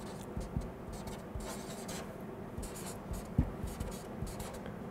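Felt-tip marker writing on flip-chart paper: a quick, uneven run of short strokes, with a low knock about three and a half seconds in.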